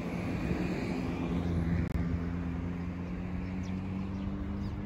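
Road traffic: a steady low vehicle engine hum with road noise, cut off for an instant about two seconds in.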